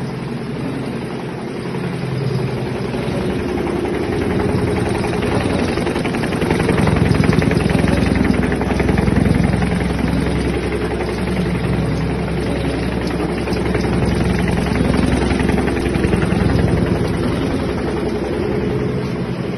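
Mattress-making machine running steadily, a rapid, even mechanical rhythm, somewhat louder in the middle.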